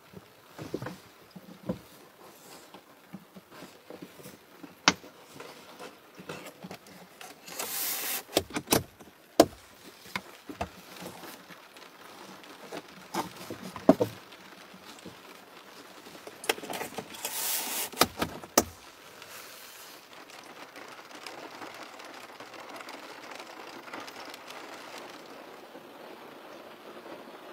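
Scattered clicks and knocks of objects being handled, with two short rustling bursts, over a faint steady hiss of rain. The handling stops about two-thirds of the way through, leaving only the rain hiss.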